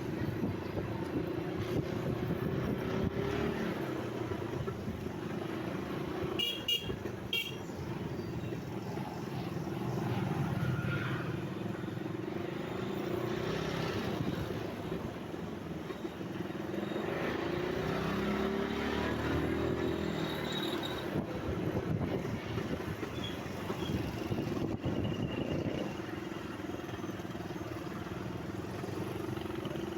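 Street traffic: motor vehicles running and passing, with a short high toot about seven seconds in.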